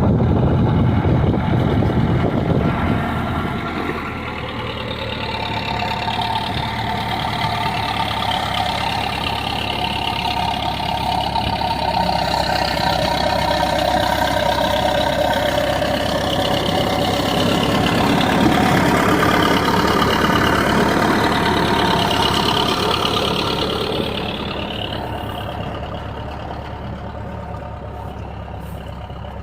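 Engine of heavy earthmoving machinery running continuously, its pitch wavering as it works, growing quieter over the last few seconds.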